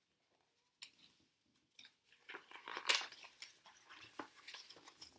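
Pages of a picture book being turned: faint paper rustling and crinkling with a few small clicks, starting about a second in and loudest about three seconds in.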